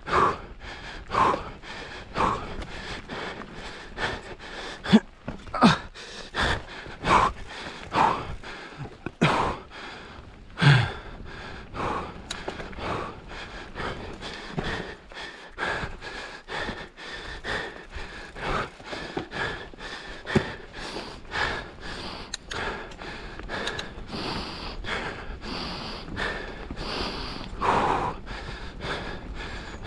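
Mountain-bike rider breathing hard, a sharp gasping puff roughly once a second, over a steady rushing noise.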